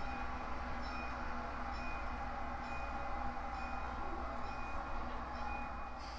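HO scale model locomotive running on the layout: a steady engine drone with faint light ticks about once a second.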